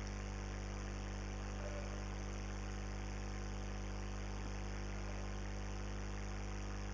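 Steady electrical mains hum and buzz with faint hiss, unchanging, from the recording setup during a pause in speech.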